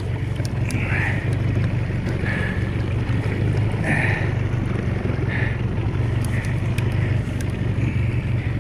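Small fishing skiff's outboard motor running steadily, with a low hum under water and wind noise, and a few brief higher-pitched sounds and faint clicks scattered through.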